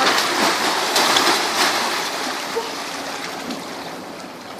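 Water splashing and churning as crocodiles thrash in a pool, with several sharp splashes in the first second and a half, then dying down.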